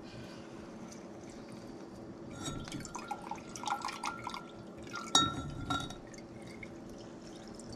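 Fresh lemon juice trickling and dripping through a mesh strainer into a glass measuring cup as lemon halves are pressed in a hand-held lemon squeezer, with light clicks and a sharper knock about five seconds in.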